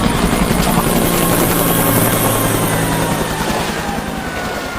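Helicopter rotor beating steadily overhead, easing off a little in the second half, with faint long tones slowly falling in pitch underneath.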